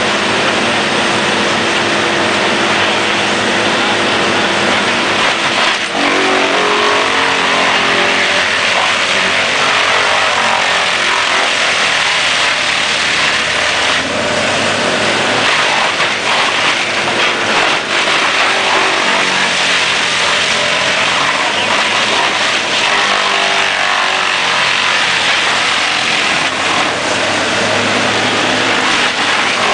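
Conehead trailer-mounted wood chipper running hard and chewing through logs fed in by a grapple loader. The engine note shifts in pitch as the logs are taken in, over a steady din of chipping.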